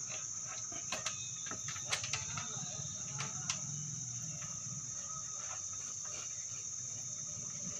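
A steady high-pitched whine under a low hum, with a scattered run of sharp clicks and knocks in the first few seconds as leads are handled and connected to the amplifier's channel B.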